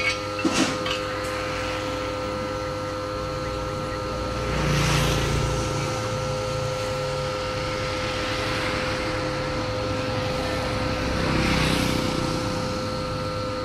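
Steady electric motor hum, two even tones over a low drone, from the spit-roasting rig over the charcoal. Twice, about five and eleven seconds in, a louder low rushing swells up for a second or two and fades.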